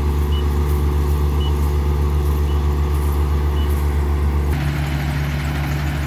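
Rice combine harvester running steadily as it cuts and gathers rice, a low engine hum with short high beeps about once a second. About four and a half seconds in, the beeps stop and the engine note changes.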